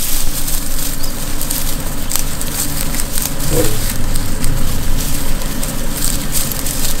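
Safari vehicle's engine idling, a steady low rumble with crackling noise over it, and one short whining call from a lion cub about three and a half seconds in.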